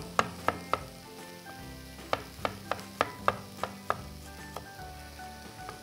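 Chef's knife chopping peeled ginger on a wooden cutting board: three quick cuts, a pause, then a run of about eight strokes at roughly three a second.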